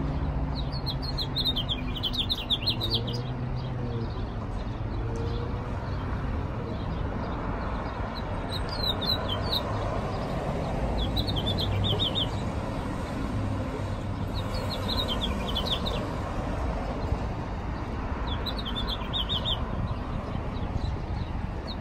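A small songbird gives short bursts of quick, high chirps, five or six bursts a few seconds apart, over a steady low hum of street traffic.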